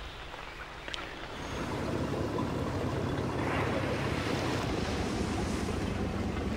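Wind and sea noise aboard a boat on open water, with a low steady rumble underneath. The noise swells about a second and a half in and then holds steady.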